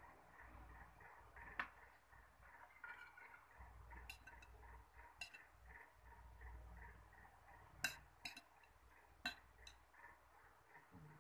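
A spoon clinking against a glass bowl of spinach soup while scooping, about seven sharp single clinks spread out, over a faint, fast ticking.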